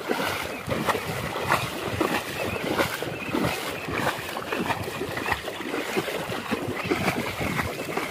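Legs wading through shallow water: repeated irregular splashing and sloshing with each stride.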